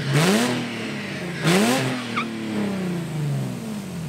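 Car engine revved twice, about a second and a half apart, each rev climbing quickly and then sinking slowly back toward idle. The revving comes from the driver of a lowered coupe stuck with its wheels off the ground, trying to drive it free while people push.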